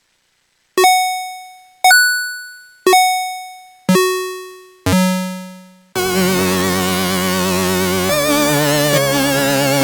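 UVI 8-Bit Synth preset playing: five single bell-like notes about a second apart, each dying away, the last two lower in pitch. About six seconds in, a sustained chord with a warbling vibrato comes in and changes chord twice.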